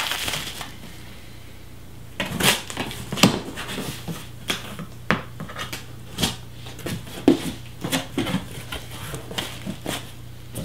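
Shipping box and packing material being handled and opened: irregular crinkling, scrapes and knocks.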